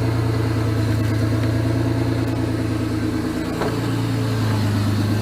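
1999 Isuzu Amigo engine idling steadily, a constant low hum.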